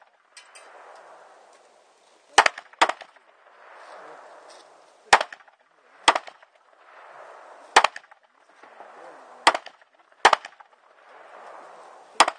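Single gunshots fired at an uneven pace, about eight sharp reports, some in quick pairs a half-second to a second apart.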